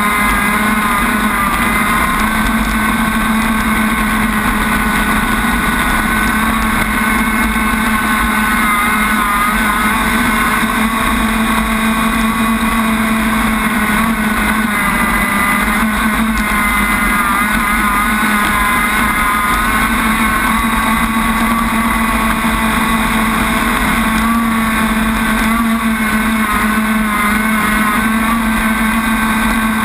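RC crackerbox boat's motor running steadily at speed, heard from on board, its pitch wavering slightly, with the hiss of water spray over the hull.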